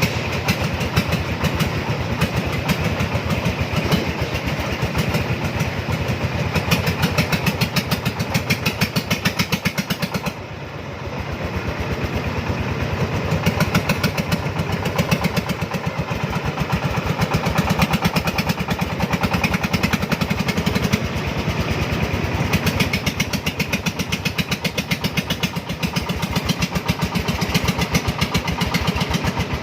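Engine of a loaded cargo three-wheeler running under load, a fast, even chugging of firing pulses. The engine sound drops briefly about ten seconds in, then picks up again.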